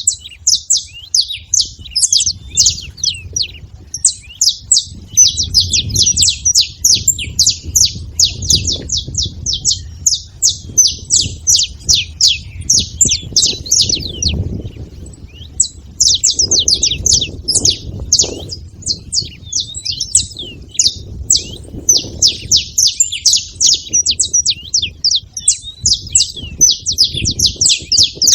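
Saffron finches chirping: rapid, high, sharp calls packed almost without break, with a short pause about halfway through, over a faint low rumble.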